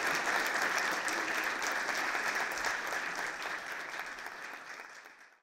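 Lecture-hall audience applauding, a dense steady clapping that fades out near the end.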